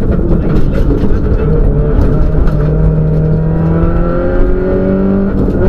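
Cusco Subaru Impreza WRX STI rally car's turbocharged flat-four heard from inside the cockpit, pulling under power. Its pitch climbs steadily through a gear in the second half, then drops at a gearshift near the end.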